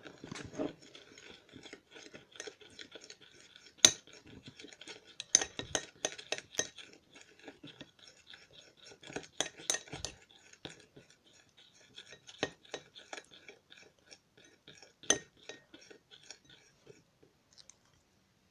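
A metal spoon stirs thick white glue with food colouring in a cut-glass bowl. The spoon clinks and taps irregularly against the glass, with several louder knocks, over the soft scraping of the stirring. It stops shortly before the end.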